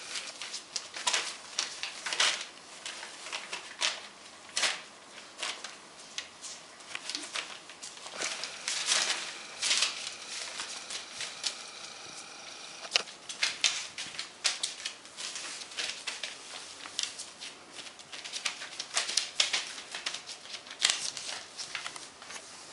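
Newspaper crinkling and rustling under Groenendael puppies' paws as they play and scramble, with quick scratchy crackles coming in irregular spells.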